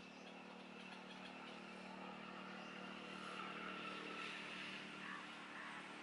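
Faint, steady engine hum of a distant motor vehicle, swelling slightly in the middle.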